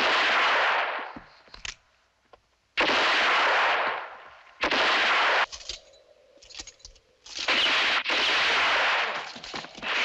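Five loud revolver shots from a western film soundtrack, each a sharp crack trailing off in a long echoing tail, spaced a second or two apart and the last two close together.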